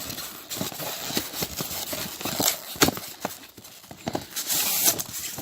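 Packaging and small plastic parts being handled: irregular clicks and taps, with a short rustle near the end.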